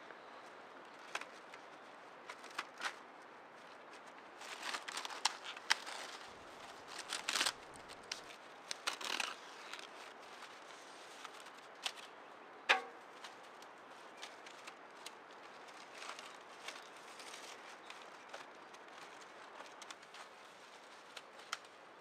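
Dry reed stalks rustling and crackling as reed bundles are handled and tied onto a wooden pole wall, with scattered clicks. The busiest rustling comes in the first half, and there is one sharp snap about thirteen seconds in.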